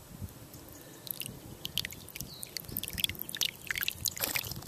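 Filtered water dribbling from the spout of a squeezed Water-to-Go filter bottle into an open palm, heard as an irregular patter of small drips and ticks.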